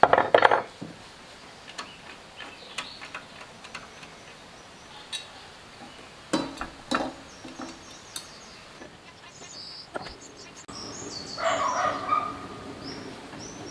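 Clanks and clicks of metal parts being handled and fitted onto a small single-cylinder diesel engine, with a sharp knock at the start and two more about six and seven seconds in. A bird calls in the background in the last few seconds.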